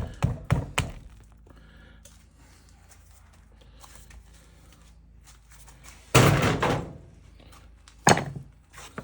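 Metal parts and tools knocking on a workbench as the sending unit's cover comes off: a few light taps in the first second, a louder clatter about six seconds in, and one sharp thunk about eight seconds in.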